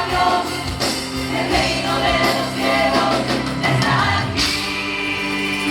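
Live worship music: a band with drums and singers. The drum hits stop about four seconds in and a chord is held.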